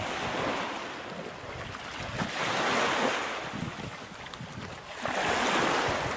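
Small waves breaking and washing up on a pebbly shore, the surge swelling about every two and a half seconds.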